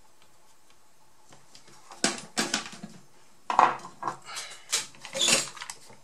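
Metal hand tools handled on a workbench: after a quiet start, a run of irregular clatters, knocks and scrapes as the soldering iron is set down and the desoldering pump is picked up.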